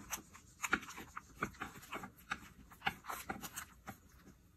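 A utensil scraping and tapping against a baking dish as a cut square of no-bake cake is pried loose. It comes as a quiet run of short, irregular clicks and scrapes, a few a second.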